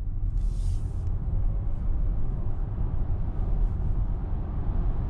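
Cabin noise of a VW ID.4 1st Max electric SUV accelerating hard on snow tyres: a steady low road-and-tyre rumble with wind and tyre noise building as the speed climbs. A short hiss comes about half a second in.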